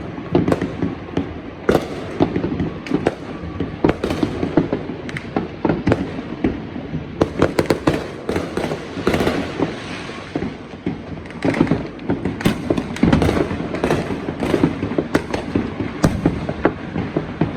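Neighbourhood fireworks and firecrackers going off in a continuous barrage: irregular bangs and pops several times a second, overlapping, with heavier stretches of dense crackling about halfway through and again a little later.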